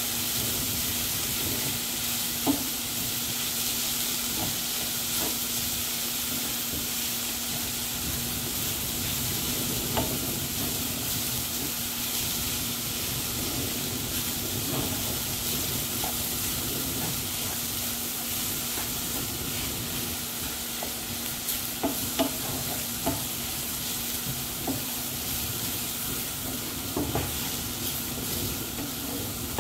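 Cauliflower rice sizzling in an oiled frying pan while a wooden spatula stirs and scrapes through it, with a few sharp knocks of the spatula against the pan. A steady low hum runs underneath.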